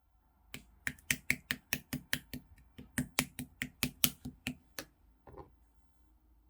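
Opaque slime being pressed and worked by hand, giving a quick run of sharp pops, about four or five a second, then one softer squish about five seconds in.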